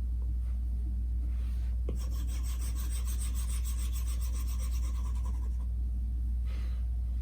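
Stylus scratching across a tablet screen, a fine rapid rasping that comes in most clearly in the middle stretch, over a steady low hum.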